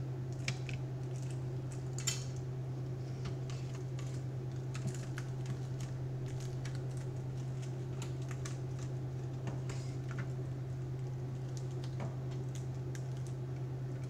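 Scattered light clicks and taps of a small metal bracket and gloved fingers handling a laptop motherboard, over a steady low hum.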